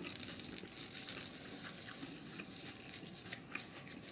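A person chewing a mouthful of chicken taco with the mouth closed: faint, with a few small soft clicks.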